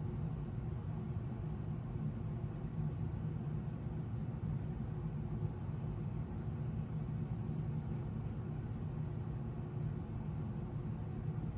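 A steady, low mechanical drone with a constant pitch and no change in level.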